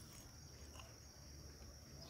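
Near silence outdoors, with a faint, steady, high insect drone and a few faint soft clicks.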